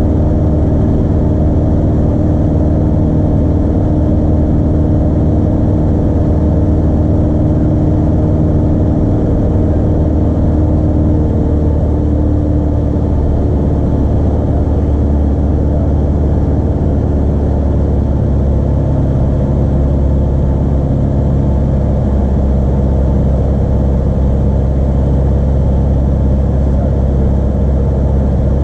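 Light aircraft's engine and propeller droning steadily, heard inside the cockpit during flight; the note shifts slightly about halfway through.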